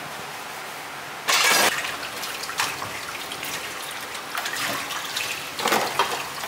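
Washing up: a short rush of water from the tap about a second in, then dishes and utensils clinking and knocking as they are set into a dish drying rack.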